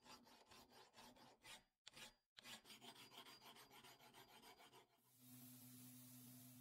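Faint, rapid scraping strokes of a hand file on a steel axe head, with a short break about two seconds in. About five seconds in they give way to the steady low hum of a belt grinder running.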